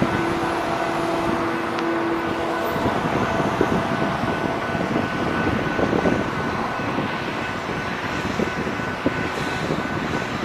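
Steady engine drone of track maintenance machines moving along the rails, with a few held tones over an even rumble and hiss.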